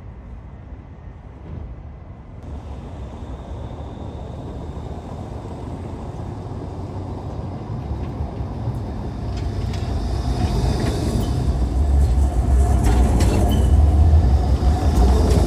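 A tram approaching, its low rumble and wheel noise growing steadily louder and peaking near the end, with a few clicks and a faint tone as it comes close.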